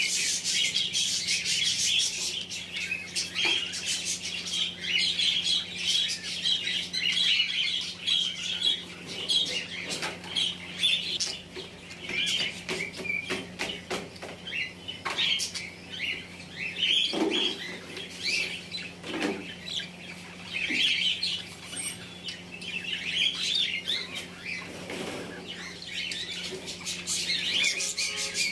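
Budgerigars chattering: a continuous stream of quick chirps and warbles, with scattered clicks.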